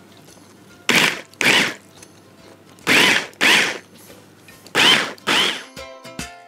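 Stick blender's chopper attachment pulsed in six short bursts, in three pairs, chopping cooked prawns and pitted green olives into a coarse granular mince rather than a purée. Near the end a plinking music sting begins.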